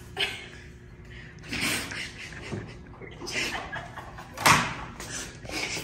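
A man and a woman laughing in breathy bursts, with one sharp knock about four and a half seconds in.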